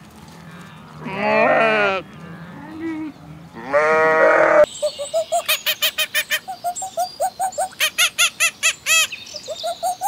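Sheep bleating twice, a long quavering bleat and then a second, louder one. About halfway through it gives way to a rapid series of short, rising-and-falling hooting calls, about four a second, from a gibbon.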